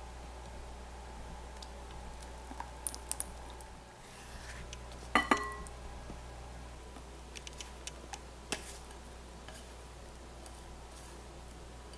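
Kitchen handling sounds: a few light taps and clicks, and about five seconds in a sharp double clink of a utensil against a bowl that rings briefly.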